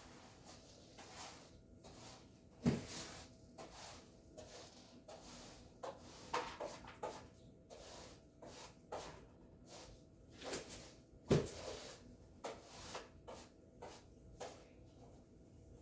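Short, irregular scrapes and knocks of floor cleaning, with two louder knocks about three seconds in and about eleven seconds in.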